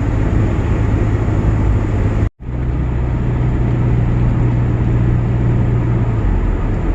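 Steady engine and road noise from inside a moving vehicle, a constant low hum. The sound cuts out completely for an instant a little over two seconds in, then resumes.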